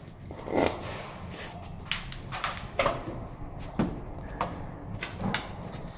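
Irregular knocks, clatters and scrapes as a stainless-steel sandwich chimney pipe section is handled in gloved hands and the test furnace's door is worked, over a low steady hum.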